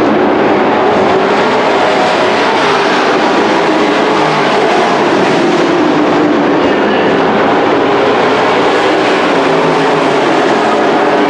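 A pack of dirt-track race trucks running laps, their engines a loud, steady din whose pitch rises and falls as they circle the oval.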